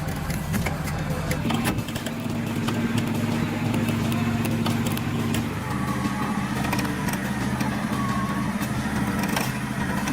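An engine running steadily with a low, even drone, its pitch shifting slightly about five and a half seconds in, with scattered light clicks.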